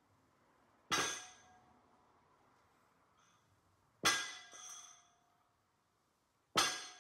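Barbell loaded with iron plates set down on a concrete floor three times during deadlift reps, each touchdown a sharp metallic clang that rings on briefly.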